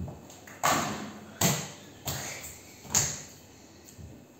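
Small toy basketball bouncing and striking hard surfaces of a room: four sharp thuds within about three seconds, each followed by a short ringing echo.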